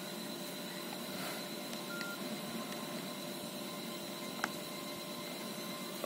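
Quiet room tone with a faint steady high whine. A faint short keypad beep sounds about two seconds in and a single key click about four and a half seconds in, as a Nokia 6820's buttons are pressed.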